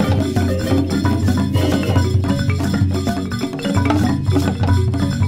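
Children's background music: a repeating bass line under mallet percussion like marimba, with wood-block-like clicks.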